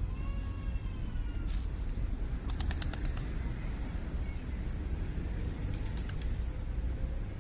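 Pigeons' wings clapping in two quick runs as birds take off, about two and a half seconds in and again about six seconds in, over a steady low rumble of city traffic.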